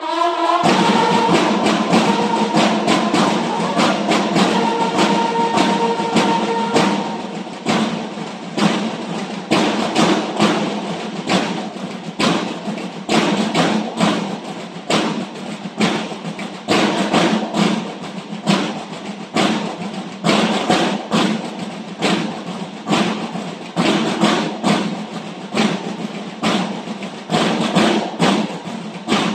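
A banda de guerra's snare and bass drums playing a steady march beat, with bugles sounding held notes over the drums for the first several seconds before the drums carry on alone.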